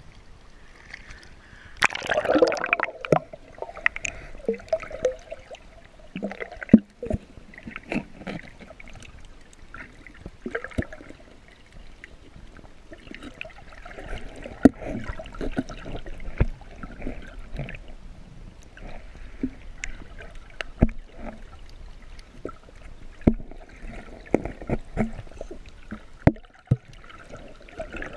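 Seawater sloshing and gurgling around a camera as it goes under the surface while snorkeling, with a splash about two seconds in and many sharp clicks and knocks throughout.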